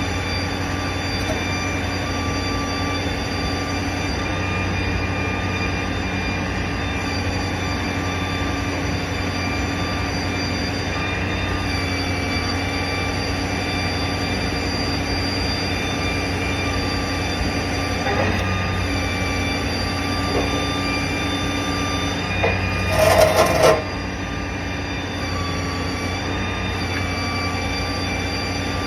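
Heavy machinery running steadily, a constant drone of several held tones. About three quarters of the way through there is a brief cluster of loud knocks.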